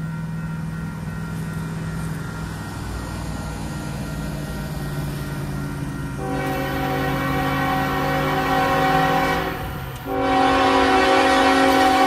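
Freight locomotives' diesel engines running as the train approaches. About six seconds in, the lead unit's Nathan K5HL five-chime air horn sounds a long blast for the grade crossing, breaks off briefly near ten seconds, then sounds again.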